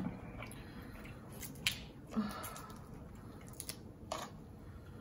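A few small, sharp clicks and crackles of a cooked prawn's shell being pulled apart and peeled off by hand.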